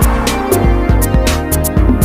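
Background music with a steady drum beat and bass, about two beats a second.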